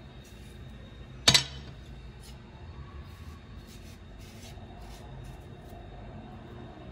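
A single sharp clink against dishware about a second in, over faint scraping of a kitchen knife peeling the rind off pumpkin slices.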